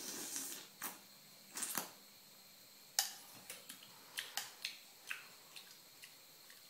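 A metal spoon clinking against a ceramic soup bowl as soup is scooped up, a run of small sharp clicks with the loudest about halfway through, after a brief slurp from the spoon at the start.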